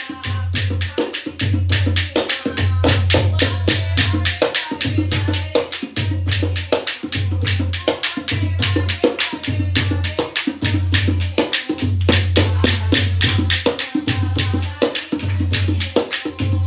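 Dholak played by hand in a fast, steady folk rhythm, with deep bass strokes recurring about once a second under sharp treble slaps, and several people clapping along in time.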